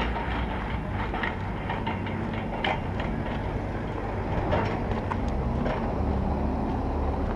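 A steady low rumble, like an engine running, with scattered short clicks and knocks over it.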